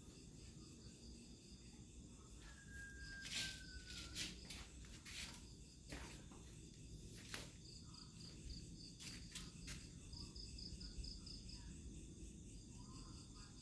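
Crickets chirping at night in pulsed, trilling runs, with a few sharp clicks or rustles scattered through it and one brief thin whistle-like tone, slightly falling, a couple of seconds in.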